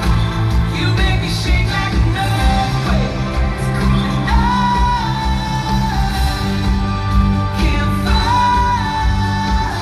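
Live pop-rock band playing in a large arena, heard from the stands: drums and bass keep a steady pulse under guitars and keyboards, and a high melody note slides up and holds about four seconds in and again near the end.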